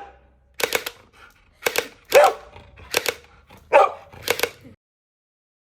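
A dog barking about six times in short, sharp barks, then the sound cuts off suddenly.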